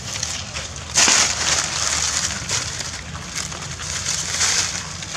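Dry fallen leaves crunching and rustling underfoot in irregular crackling bursts, with the loudest crunch about a second in.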